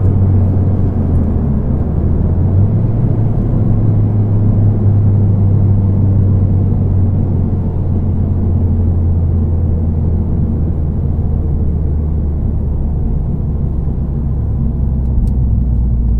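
Mazda 3 MPS's turbocharged 2.3-litre four-cylinder and resonator-deleted exhaust droning steadily at a light cruise, heard inside the cabin with road rumble. The pitch nudges slightly higher about two and a half seconds in.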